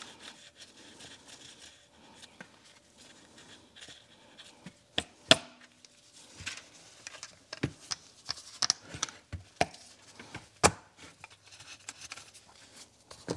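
Handling noise from reassembling a BMW double VANOS unit: soft rubbing of gloved hands on the parts, then from about five seconds in a string of irregular sharp clicks and knocks as the metal pieces are pressed home and set on the housing and metal tray. The loudest knock comes a little after five seconds in.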